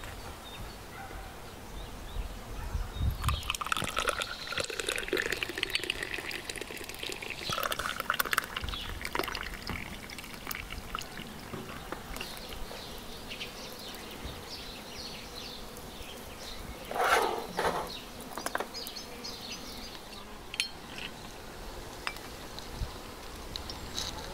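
Tea being poured from a porcelain teapot into a glass, a trickling pour, with a few light clinks later on.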